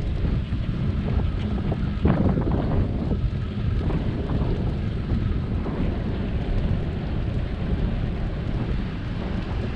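Wind buffeting the microphone of a camera on a moving bicycle: a steady low rumble, with a stronger gust about two seconds in.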